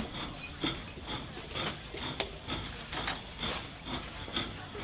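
Ice being scraped and stirred in repeated short strokes, about two a second.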